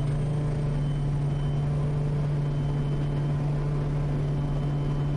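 Quest Kodiak's PT6A turboprop engine and propeller at full takeoff power, just after rotation: a steady, even drone with a strong low hum that holds one pitch.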